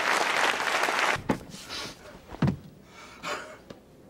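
Audience applauding, cut off abruptly about a second in, then two dull thumps about a second apart.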